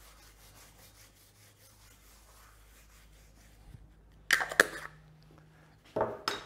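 Two short rubbing, scraping handling sounds from a tin of beeswax and a wax cloth, one about four seconds in and another near the end, after a quiet stretch.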